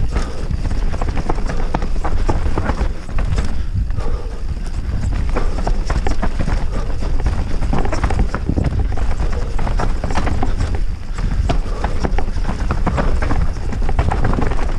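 Orbea Rallon 29er mountain bike being ridden over rough trail, picked up by an action camera: a constant, irregular clatter of knocks and rattles from the tyres and bike over roots and rocks, over a deep rumble of wind on the microphone.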